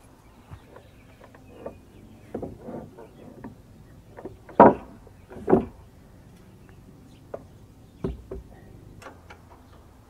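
Heavy squared timber beam being shoved by hand across wooden sawmill bunks: scraping and knocking of wood on wood, with two loud thumps near the middle and another sharp knock a little later.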